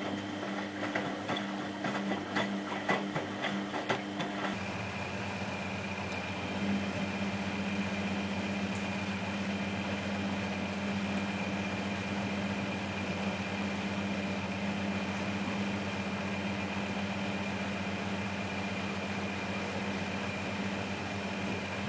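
Miele Hydromatic W734 washing machine running, its motor and drum giving a steady hum. Irregular knocking and clattering comes through for the first four seconds or so, then the machine settles into a smoother, slightly louder running tone.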